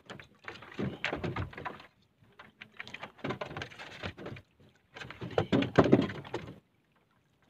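Knocking, thudding and rustling of a fisherman handling gear in a small boat, in three bouts of a second or two each, stopping about six and a half seconds in.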